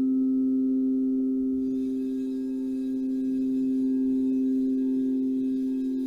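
Singing bowls ringing in two steady, sustained pure tones, one lower and one higher, with faint higher overtones.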